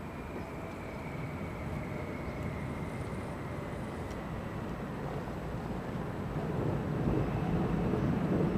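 Electric motor whine from an RC4WD Riinox rock crawler's two Novak Fifty Five motors mounted on its Bully axles as it creeps over rocks: a thin whine that sinks slightly in pitch, then comes back a little higher near the end. A louder low rumbling noise builds about two-thirds of the way through.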